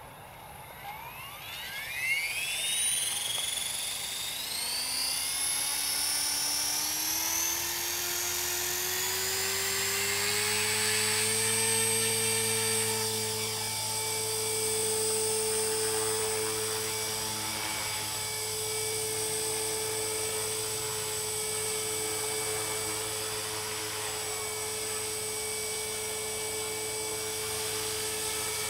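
Align T-Rex 450 Pro electric RC helicopter spooling up: the whine of its motor and rotor rises in pitch for the first ten seconds or so, then holds steady as it flies.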